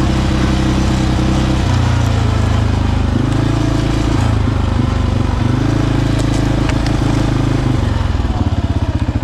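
ATV engine running while under way, its note stepping up and down several times as the throttle is worked. Near the end it settles to a slower, pulsing throb as the throttle is eased off.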